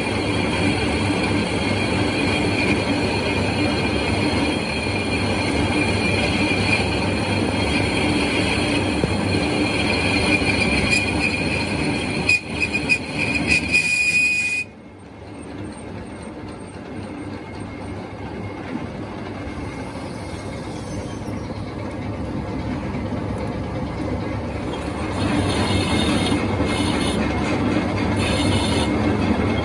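Metal lathe cutting a steel part, running steadily with a high squeal from the cut. The sound drops off suddenly about halfway through and comes back up near the end.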